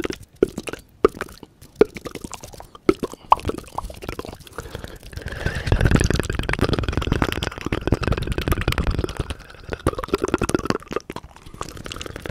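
Fast tongue and finger fluttering: wet clicks and pops from the mouth. They come scattered at first, then from about five seconds in turn into a fast, dense flutter with both hands cupped over the mouth, and thin out again near the end.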